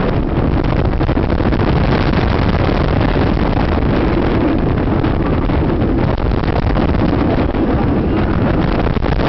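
Onboard a Bolliger & Mabillard inverted roller coaster at speed: wind rushing over the microphone and the train's running roar, loud and steady.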